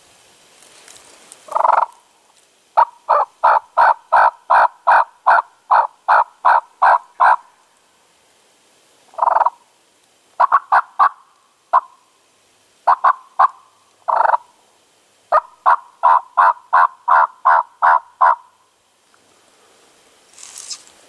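Turkey yelping: two long runs of evenly spaced yelps, about three a second, with single louder notes and short broken runs between them.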